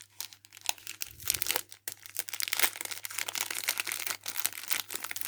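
Plastic packaging crinkling and rustling in irregular crackles as it is handled, busier from about two seconds in.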